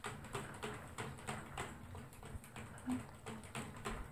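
A toy poodle in a wire crate making quick, irregular small clicks and smacks, several a second.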